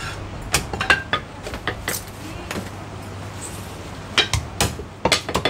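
Chinese cleaver chopping roast meat on a thick round wooden chopping block. A quick run of sharp chops is followed by a pause of about two seconds, then more chops near the end.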